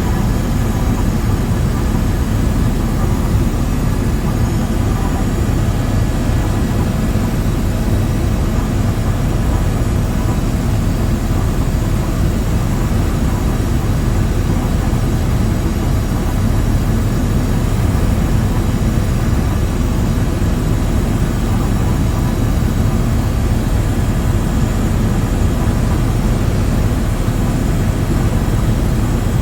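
Aircraft in flight: a steady, loud engine drone with no change in pitch.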